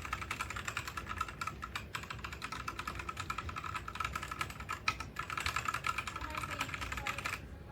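Fast typing on a DIERYA x TMKB T68 compact magnetic-switch gaming keyboard: a quick, continuous run of key clicks with brief breaks about two seconds and five seconds in, stopping shortly before the end.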